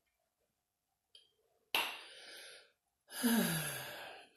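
A woman's tired breathing: a sudden breathy rush about two seconds in, then a longer sigh whose voice falls in pitch.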